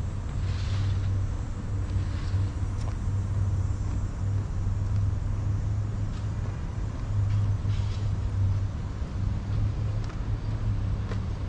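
A steady, low engine hum over street ambience, from a motor vehicle out of sight, with a few faint ticks.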